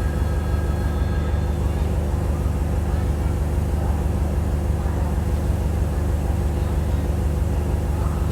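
Diesel engine of a DEMU (diesel-electric multiple unit) train running steadily: a low drone with a fast, even throb. A faint higher whine fades out about two seconds in.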